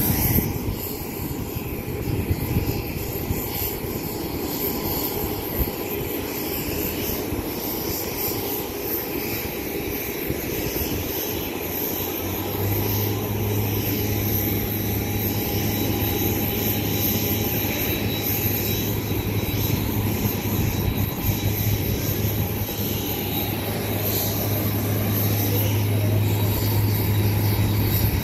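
Boeing 787 Dreamliner's jet engines running at taxi power, a steady whine over a rumbling roar that grows a little louder toward the end as the airliner comes closer. About halfway through a steady low hum joins in.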